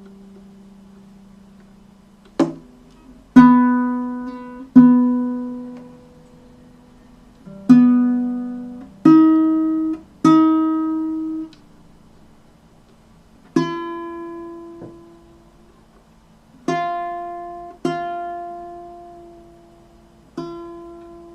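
Baritone ukulele with single strings plucked one at a time, about ten notes in all, each ringing out and dying away before the next.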